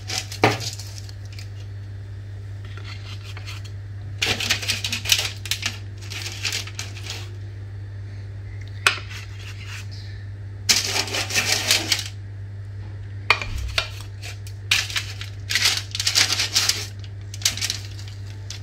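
Wooden spatula scraping and crinkling against aluminium foil on a baking tray as baked puff pastries are pried loose and lifted, in several separate bouts of scraping. A steady low hum sits underneath.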